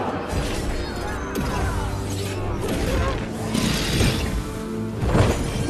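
Film score music mixed with action sound effects: clashing, clattering hits, a large rushing crash about four seconds in, and another sharp hit near the end.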